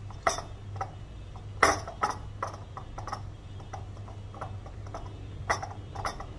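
Glass clip-top jar being handled and wiped dry with a cloth: irregular light knocks and clinks of glass, the loudest about a second and a half in.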